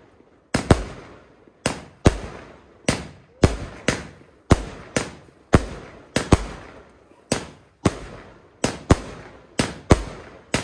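Fireworks going off: a steady run of sharp bangs, roughly two a second and often in close pairs, each trailing off in a rolling echo.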